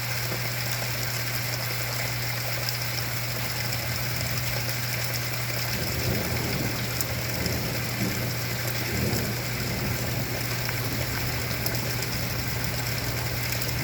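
Heavy rain pouring steadily during a thunderstorm, with a low rumble of thunder swelling from about six seconds in and fading near the ten-second mark.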